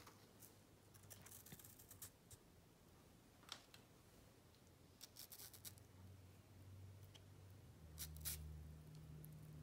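Near silence with faint small clicks and scratches of fruit pieces being handled and pushed onto wooden toothpicks in a carrot. A faint low hum comes in about halfway through.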